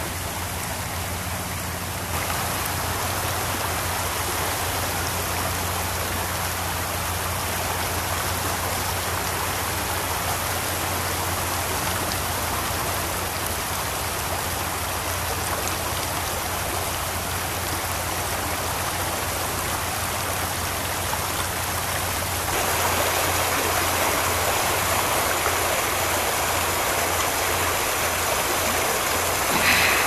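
Shallow stream of groundwater running out over beach shingle and pebbles at low tide: a steady rush of water, which gets louder about 22 seconds in as it is heard closer.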